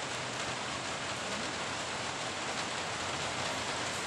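Steady, even hiss of background noise, unchanging throughout.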